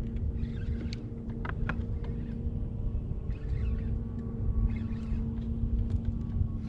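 Steady hum of a boat motor over a low rumble, with a few sharp clicks about one and a half seconds in.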